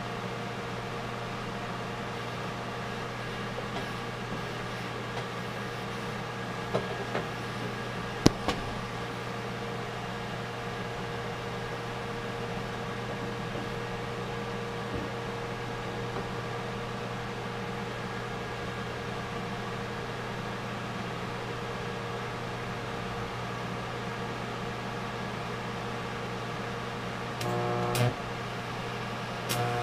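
TIG welder humming steadily at idle, with a few sharp clicks about seven and eight seconds in. Near the end the arc strikes twice, each time with a sharp crackle followed by a louder, steady arc buzz, as fusion welding on the steel parts begins.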